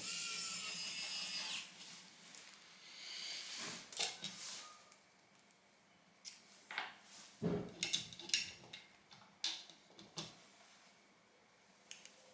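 A short scraping rub of parts being handled, a fainter scrape a couple of seconds later, then scattered light clicks and taps of small laptop parts and tools being set down and fitted.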